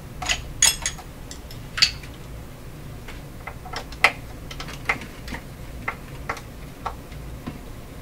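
Irregular light clicks and taps of an Allen key and small screws as screws are worked out of a reel-to-reel tape recorder's cover, the loudest few in the first two seconds and one about four seconds in.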